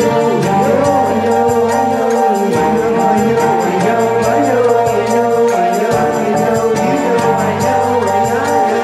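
Song music: a sung melody over held chords, with a steady beat of light, high percussion.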